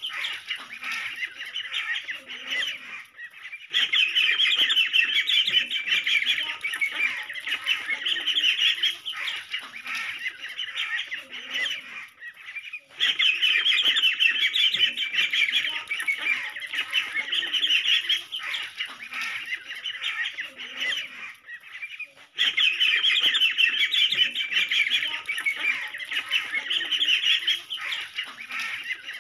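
A group of ducklings peeping, many high-pitched calls overlapping in a dense chorus. It pauses briefly about every nine seconds.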